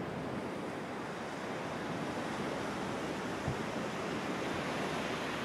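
Steady surf of the Baltic Sea washing on a sandy beach, with wind on the microphone. A brief low bump about three and a half seconds in.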